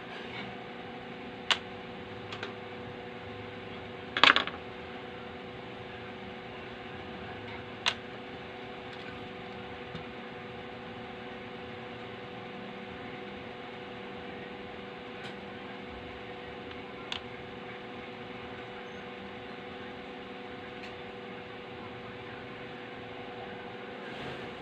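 Steady electrical hum from the workbench, with a few light clicks and taps as a thermal-paste tin and small heatsink parts are handled. There is one louder clatter about four seconds in.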